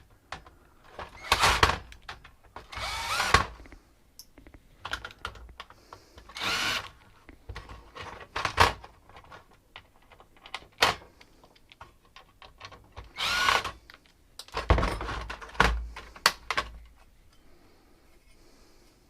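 Cordless drill/driver run in several short bursts, its pitch bending as it backs screws out of a Dell Pro 2X docking station, with clicks and knocks of parts being handled in between.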